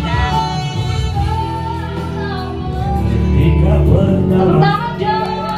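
Music with a sung melody, the voice holding and gliding between notes over a steady accompaniment.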